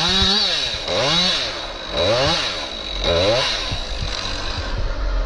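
Chainsaw engine revved up and down four times about a second apart, each rev rising and falling in pitch, then dropping to a lower, steadier running sound near the end.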